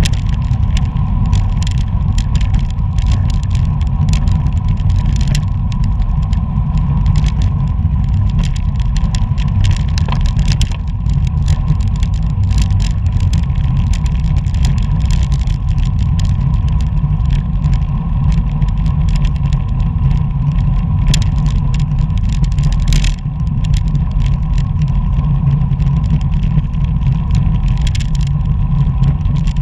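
Wind rushing over a bike-mounted action camera's microphone while riding at race speed, a steady loud low rumble with road and tyre noise, a faint steady high tone underneath and scattered light ticks.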